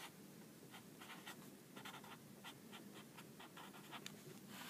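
Faint scratching of a felt-tip marker writing on paper in a series of short, quick strokes.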